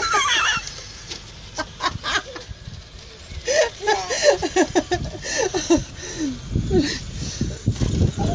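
Excited children's voices laughing and squealing in short choppy bursts, with a high squeal right at the start and a quick run of laughter from about three and a half seconds in.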